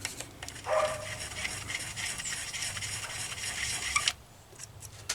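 Aerosol brake cleaner spraying with a steady hiss, blasted into the freshly tapped holes to clean them out, cutting off sharply about four seconds in. A brief pitched whine comes about a second in.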